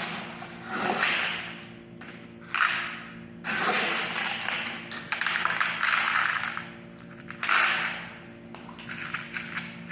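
Cat food being handled for feeding: several bursts of rustling and rattling, a second or two each, as the bag is shaken and food is poured, over a steady low hum.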